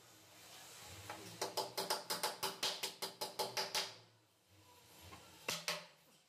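Hammer driving a nail into plywood. A quick run of about a dozen light taps, roughly five a second, each with a short ringing tone, then two or three harder blows near the end.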